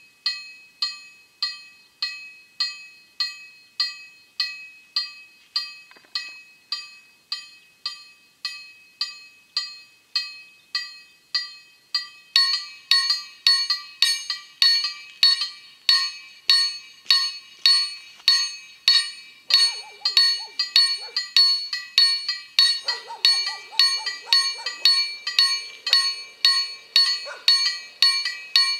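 Polish level-crossing warning bell (KLD-4013) striking steadily, about one and a half strikes a second: the ZWUS SPM+SPR-1 crossing system's warning that the crossing is closing for a train. About twelve seconds in, a second crossing bell joins and the ringing becomes louder and denser.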